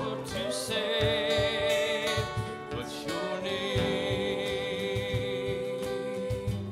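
Live worship band: voices singing over strummed acoustic guitars and a cajon beating time, with a long held sung note from about halfway through.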